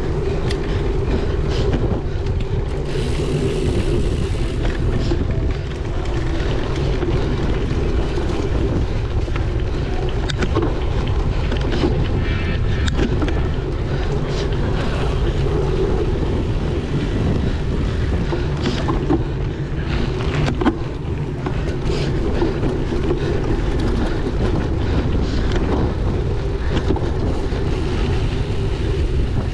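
Strong wind buffeting the microphone as a steady low rumble, with scattered clicks and knocks of a cyclocross bike rattling over a dry, bumpy course.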